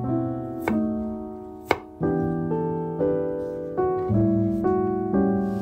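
Gentle piano background music, its notes changing about every half second. Twice early on, near 0.6 s and 1.7 s, it is joined by a sharp chop of a chef's knife cutting through broccoli onto a wooden board.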